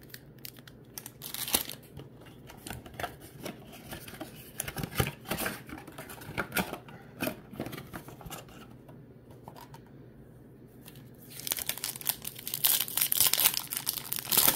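Scattered light clicks and rustles, then from about eleven seconds in a foil trading-card pack torn open and crinkled in the hands, a dense crackling rustle.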